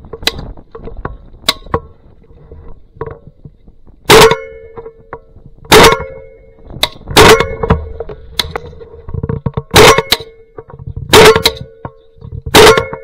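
Shotgun fire from several guns: six loud, close shots about every one and a half seconds from about four seconds in, with quieter shots scattered between them. A steady hum runs underneath.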